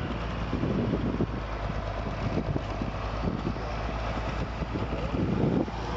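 County tractor's diesel engine running steadily, with some wind on the microphone.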